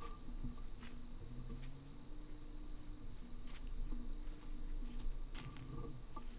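Steady high-pitched chirring of crickets in the woods, with a few sharp ticks scattered through it.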